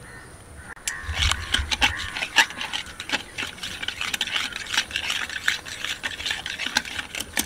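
Coiled-spring whisk beating eggs in a plastic bowl: quick, rattling and scraping strokes of the wire coil through the eggs and against the bowl, starting about a second in.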